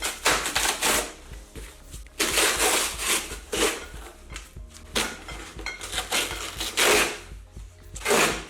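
A cardboard wine box being opened by hand, giving repeated bursts of tearing and rustling about a second each.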